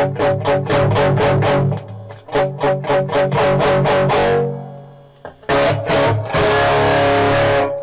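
Electric guitar played through an amp via an audio probe on a RAT-style distortion pedal circuit board: two quick runs of picked notes, a pause, then a chord that gives way to a loud, harsh hiss near the end, which cuts off suddenly.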